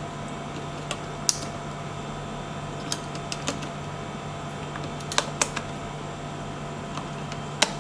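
Batteries being pressed one by one into the battery compartment of a smart door lock's back panel: a handful of short, sharp plastic clicks and snaps at uneven intervals, over a steady low hum.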